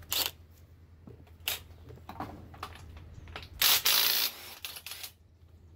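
Hand tools working on a GM LY6 6.0 L V8 short block: sharp metal clicks and knocks, with a louder rattling stretch of about half a second near the middle, typical of a ratchet wrench on a bolt.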